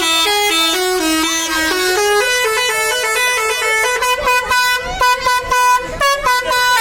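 Bus 'telolet' musical air horn playing a fast tune of short stepped notes, the pitch jumping several times a second. The notes turn choppier, with short breaks, in the second half.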